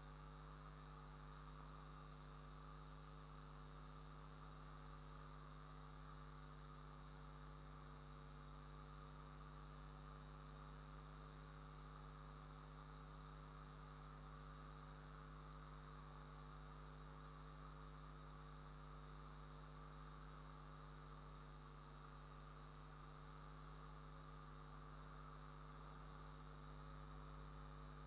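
Near silence: a faint, steady electrical hum with a little hiss, unchanging throughout.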